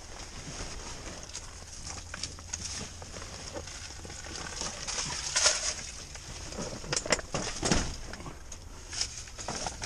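Handling noise inside a pop-up hub ground blind being taken down: the fabric walls rustle and scattered knocks and clicks come from the poles and gear, with a few louder knocks about five and a half and seven to eight seconds in.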